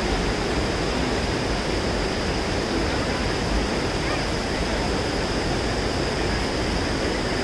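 Steady rush of flowing water over rocks, an even unbroken roar with no gusts, with a thin steady high whine above it.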